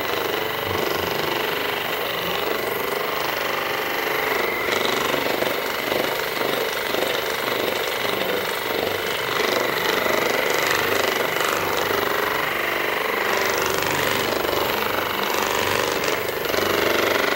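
A small motorised device buzzing steadily, with a constant high tone over a dense mechanical noise.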